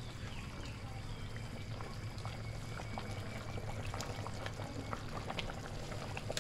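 A metal ladle stirring a pot of simmering vegetable soup: liquid sloshing and bubbling, with many small clinks of the ladle against the pot, over a steady low hum.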